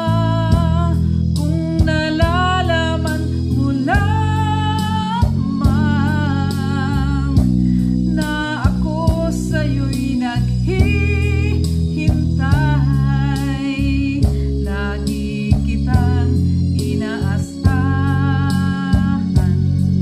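A woman singing with a wide vibrato over a recorded backing track with guitar.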